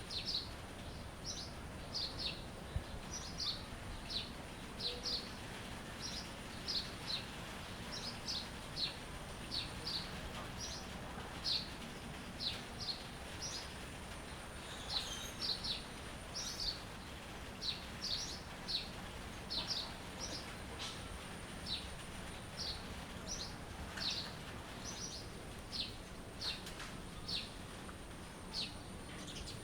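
Small birds chirping: short, high chirps repeating about one to two a second, over a steady outdoor background hiss.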